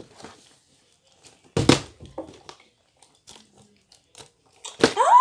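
A sudden thump about a second and a half in, then faint clicks and crinkles as a thin plastic water bottle is handled and drunk from. A child gives a short rising vocal cry near the end.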